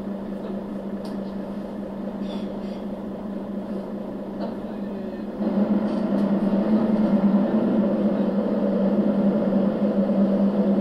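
Mercedes-Benz O 530 GL CapaCity city bus's six-cylinder diesel engine running steadily, heard from inside the bus. About halfway through, the engine sound steps up abruptly and stays louder.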